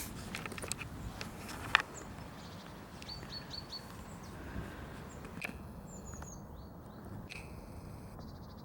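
A few scattered clicks and one sharp knock about two seconds in, then small birds giving short high chirps, a quick row of four and later a couple of falling ones, over a low steady background noise.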